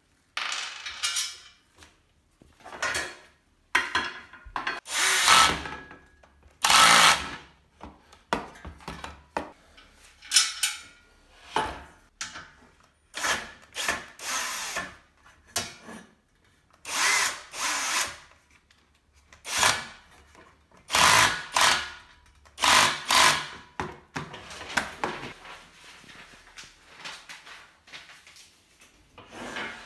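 Bosch cordless drill-driver driving screws into a table's frame rails, in many short runs of a second or less with pauses between them.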